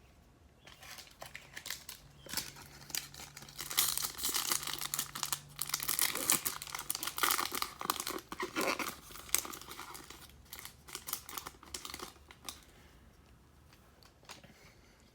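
Foil wrapper of a Topps baseball card pack being torn open and crinkled, an irregular run of crackling and rustling that starts about a second in and dies away a few seconds before the end.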